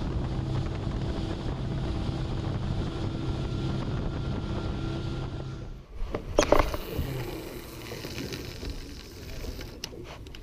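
Boat engine running steadily at cruising speed, with wind and the rush of the hull through the water. It stops abruptly about six seconds in and is followed by a brief, loud clatter of knocks, then quieter wind and water noise.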